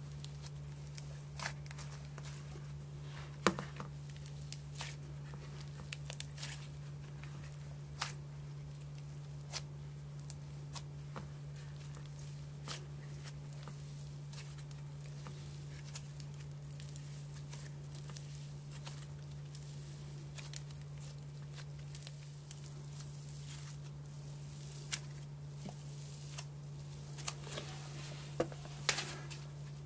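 Pink slime being squeezed, kneaded and pulled by hand through fake snow powder: soft crackling and squishing with scattered sharp little pops, over a steady low hum.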